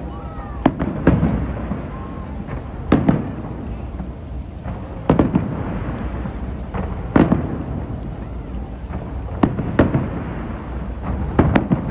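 Aerial fireworks bursting: about nine sharp booms at irregular intervals, a second or two apart, over a steady low rumble.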